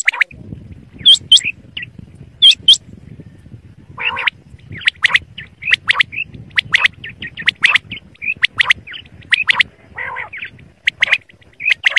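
Desi quail calling: short, sharp, high chirps and squawks, a few at first and then several a second from about four seconds in, over a low steady rumble.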